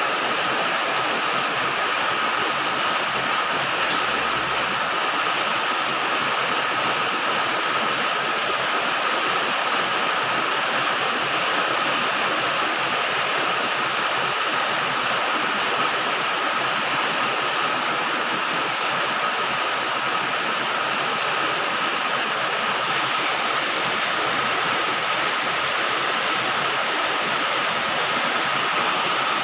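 Rain falling steadily on a galvalume sheet-metal roof, aluminium-zinc coated steel: a dense, even hiss that does not let up.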